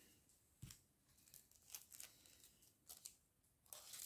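Faint rustling and crinkling of packaging being handled, in a few short, scattered bursts.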